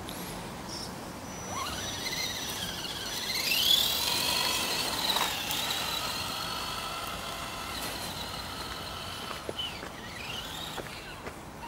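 Axial 4x4 RC jeep's electric motor and gears whining as it drives, the high whine rising in pitch as it speeds up a few seconds in, holding, then falling away; a couple of shorter rising and falling whines near the end as it throttles again.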